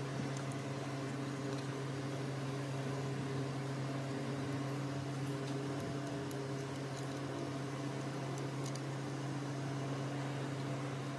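Steady electric machine hum, like a fan or motor running, over an even hiss, with a few faint ticks.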